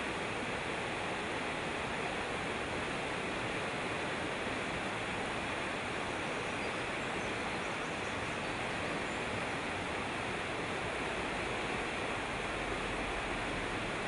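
Mountain stream rushing over rocks in white-water rapids: a steady, even rush of water.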